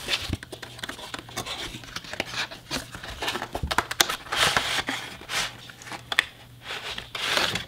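A cardboard box being opened and a clear plastic packaging tray slid out of it by hand: irregular scraping, rustling and crinkling with small clicks, swelling about four seconds in and again near the end.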